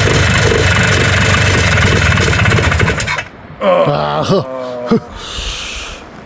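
Two-stroke Polaris 300 ATV engine running rough, then cutting out suddenly about three seconds in. It dies instead of settling to an idle, the engine's not-idling fault.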